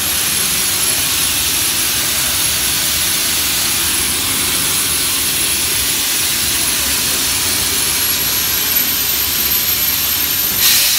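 Steam locomotive Alberta giving off a steady, loud hiss of escaping steam, with a thin high whine running through it. Near the end the hiss briefly surges louder.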